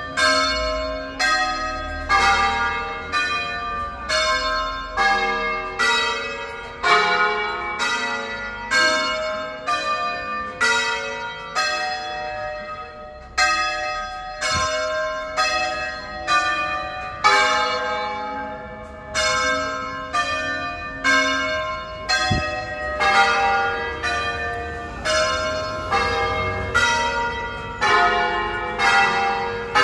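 A ring of large church bells in E-flat, nine bells hand-rung in concert by a band of ringers. Strike follows strike in a steady succession, each bell ringing on under the next.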